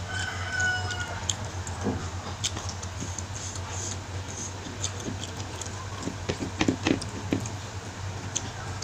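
Close-miked eating sounds: scattered wet clicks and smacks from chewing and from fingers picking spicy goat meat off the bone, with a denser run of clicks a little past the middle. A steady low hum sits underneath.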